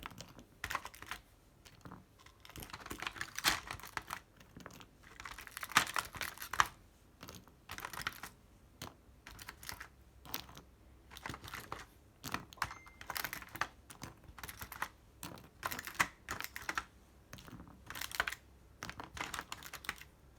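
Typing on Akko CS Matcha Green key switches: irregular runs of keystroke clicks, with short pauses between the flurries.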